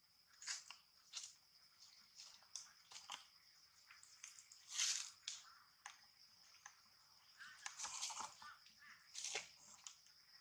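Long-tailed macaque handling and biting into a lotus seed pod: a scatter of short crackles and crunches, with a longer tearing rasp about halfway through.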